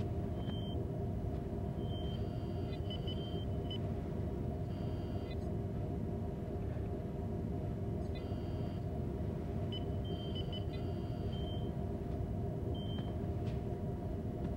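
Sci-fi starship ambience: a steady low engine hum and rumble with short high electronic computer beeps and chirps scattered through it every second or two.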